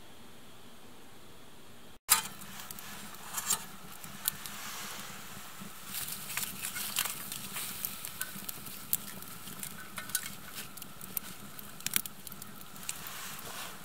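A faint steady hiss, then from about two seconds in a wood fire crackling and popping, with irregular sharp snaps over a low hiss.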